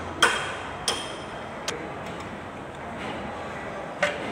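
Four sharp metallic clinks of metal parts knocking together as they are handled and fitted at the front of a tractor engine. The first, about a quarter second in, is the loudest and rings briefly; the others follow at uneven intervals, the last near the end.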